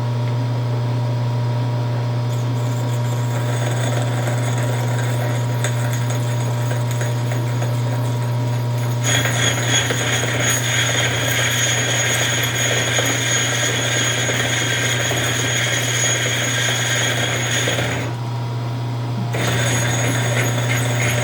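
Hardinge HLV lathe running with a steady hum while a parting tool cuts into the ring stock. About nine seconds in a harsh, high cutting noise with a thin whistling tone starts; it breaks off briefly near the end and then resumes. This is a hard-going parting cut, which the machinist suspects may be down to the insert.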